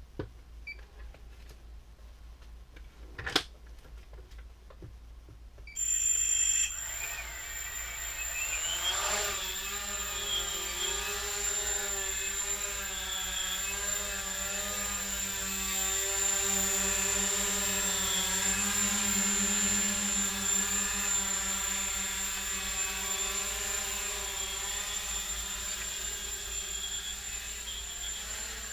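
Micro quadcopter's brushless motors and 6-inch carbon-fibre props starting up about six seconds in and rising in pitch as it lifts off, then a steady buzzing whine that wavers in pitch as the throttle is worked. A single sharp click comes about three seconds in, before the motors start.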